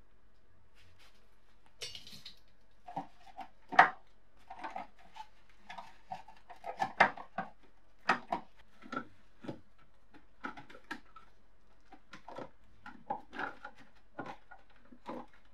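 Loose metal parts of a rusted antique scale clinking and knocking against its metal housing as they are handled and worked loose by hand: irregular small clicks and knocks, with one sharper knock about four seconds in and a short scrape near the start.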